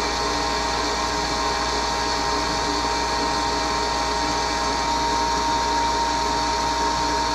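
Wet ring dental vacuum pump running steadily with a constant whine, its inlet blocked off so no air flows through it. Starved of air, the pump is heating up, and it is weak: it pulls only about 14 with the inlet blocked instead of the 25 it should reach.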